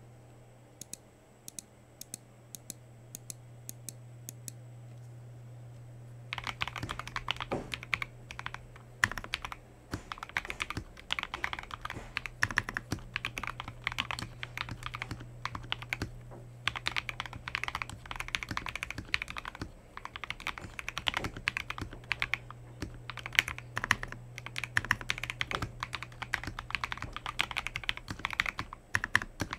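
Typing on a Leaven K620 compact mechanical keyboard fitted with lubed and filmed KTT Wine Red linear switches, PBT Cherry-profile keycaps, a three-layer tape mod and foam dampening: fast, continuous keystrokes start about six seconds in, with a couple of short pauses. Before the typing only a steady low hum and a few faint high ticks are heard.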